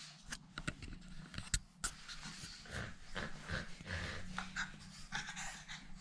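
Pug puppy panting close by in quick, irregular breaths, with small clicks scattered through.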